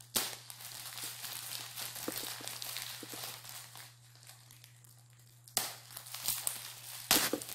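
Clear plastic packaging crinkling and rustling as hands pull and tear at it, with sharp louder crackles just after the start, about two-thirds of the way through, and near the end.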